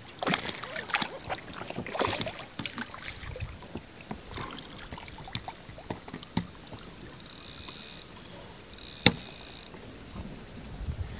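A hooked bass splashing at the surface beside an inflatable float tube, then scattered knocks and clicks as the rod is set down and the landing net handled, with one sharp click about nine seconds in.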